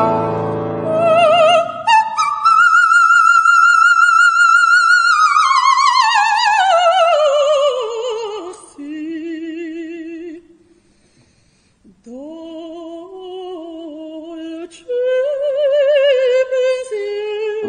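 Operatic soprano singing with wide vibrato as a piano chord dies away. She holds a high note, then sweeps slowly down to a low note and breaks off briefly. She picks up again with a phrase in her middle range, with no piano heard under her.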